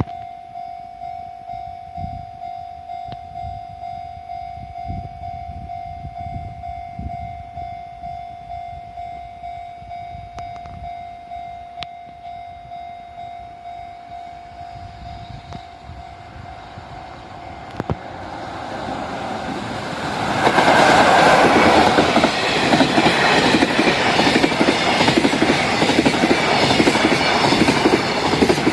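Level-crossing alarm ringing with a steady tone and a regular clanging beat, then a freight train hauled by a JR EF66 electric locomotive approaches from about 18 s in and passes loudly from about 20 s in, its wagons' wheels clacking over the rail joints.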